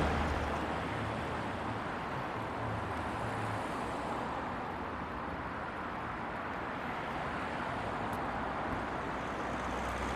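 Steady café background noise: an even hum and hiss with no distinct sounds standing out.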